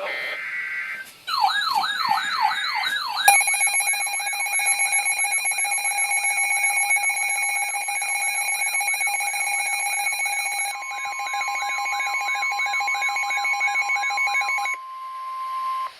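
Emergency Alert System alert tones on NOAA Weather Radio for a flood warning. About a second of short data-burst tones is followed by a warbling alarm that sweeps up over and over. After about three seconds a steady alert tone joins it, and a second steady tone comes in near the eleven-second mark; the overlapping alarm, which the uploader calls an EAS fail, cuts off about a second before the end.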